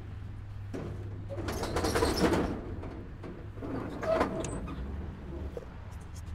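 Corrugated metal roller shutter of a street kiosk rattling as it is pushed up open, a noisy run of about a second that starts about a second and a half in. A shorter clatter follows about four seconds in.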